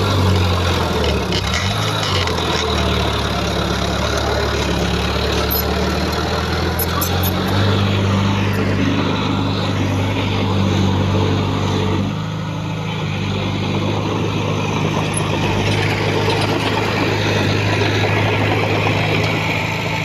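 Heavy diesel engine of earthmoving machinery running steadily, its pitch stepping up or down a few times, with a few faint clicks about six to seven seconds in.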